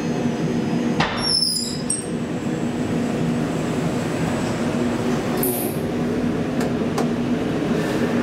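Bravida hydraulic elevator running with a steady hum, with a clunk about a second in and a lighter click about seven seconds in.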